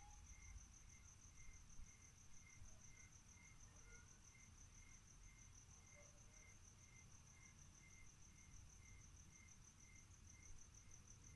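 Faint night insects chirping: a steady high trill with a lower chirp repeating about three times a second.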